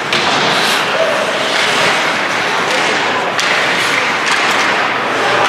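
Ice hockey game din in an arena: a steady wash of crowd voices and rink noise, with scattered sharp clicks and thuds from sticks, pucks and boards.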